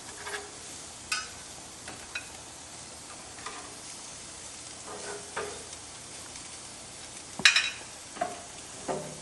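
Fish patties sizzling on a hot barbecue grill, with scattered scrapes and clinks of a metal spatula on the grate. The loudest, a sharp clank, comes about seven and a half seconds in.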